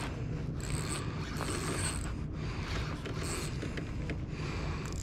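Spinning reel being cranked in uneven spells, its gears whirring and clicking, as a hooked fish is reeled in.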